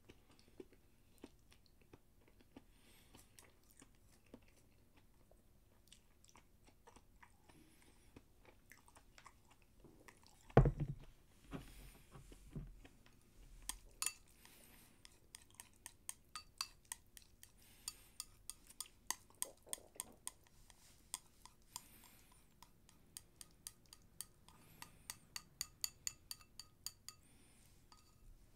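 Close-up chewing and mouth sounds while eating. About a third of the way through comes one heavy knock, and after it a long run of light clicks and taps of chopsticks against a glazed ceramic bowl, some ringing briefly.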